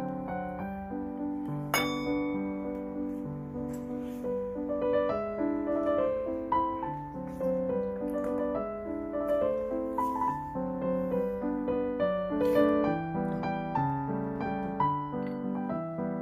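Background piano music, a melody of single notes stepping along about every half second.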